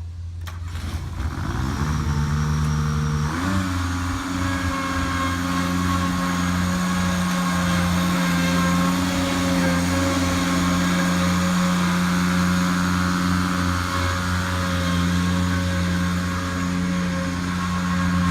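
Grasshopper 725 mower engine running, coming up in level over the first couple of seconds. About three and a half seconds in it speeds up, then holds a steady higher speed.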